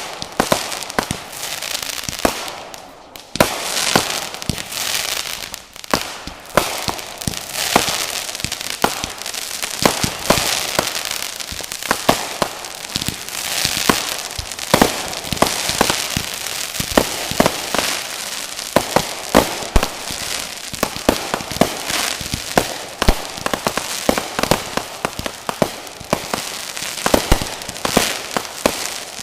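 Fireworks going off: many sharp bangs in quick succession over a continuous crackling, with a short lull about three seconds in.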